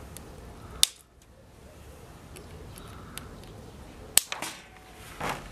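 Two sharp metallic clicks from crimping pliers working a wire clamp, about three seconds apart, the second followed by a few lighter clicks.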